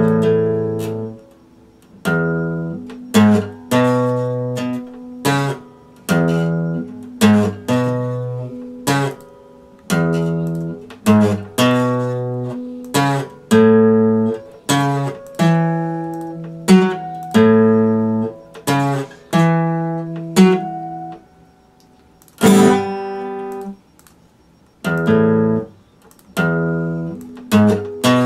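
Epiphone dreadnought acoustic guitar played slowly: chords struck one after another, each left to ring out before the next, the chord changing every second or so, with two short pauses in the last third.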